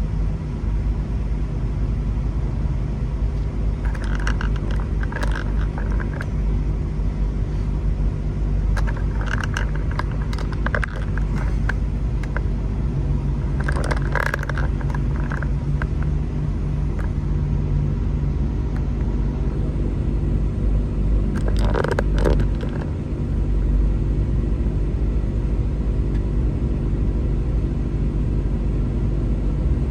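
Car driving slowly, heard from inside the cabin: a steady low engine and road rumble, with a few short bursts of higher rattling noise over it.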